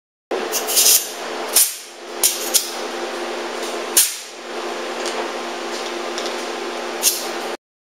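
Pneumatic hand tool on a coiled air hose being handled and coupled up: about half a dozen short, sharp hisses and clicks over a steady hum. The sound starts and cuts off abruptly.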